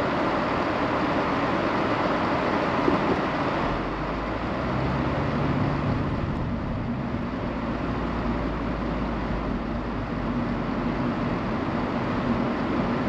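Car interior noise: a steady hum while the car waits at a red light, then the car pulls away about four seconds in, when a low engine hum comes in, and it drives on with steady engine and road noise.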